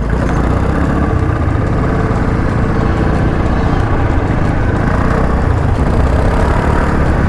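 Motorcycle running steadily on the move: an even engine rumble with a dense noise on top, unchanged throughout.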